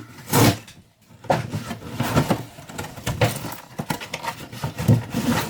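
Cardboard shipping box being opened by hand: a run of irregular tearing, scraping and rustling noises.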